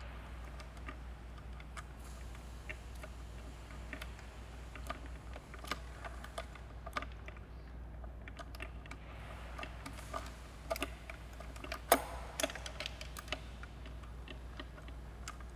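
Irregular light metallic clicks and taps of hand tools and bolts as the supercharger mounting bolts are started using a magnet on a long tool, with one sharper click about twelve seconds in. A low steady hum lies underneath.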